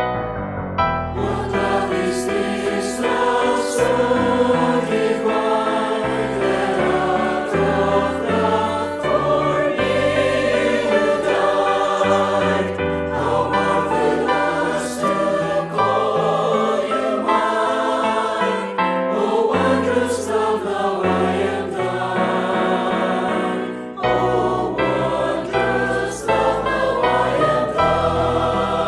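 Mixed choir of men's and women's voices singing a Christian anthem in parts, over instrumental accompaniment with low held bass notes. The voices come in fully about a second in, with a short breath break near the end.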